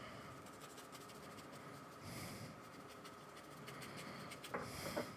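Faint scratching and rubbing of a flat paintbrush working acrylic paint onto sketchbook paper, with soft strokes and small ticks.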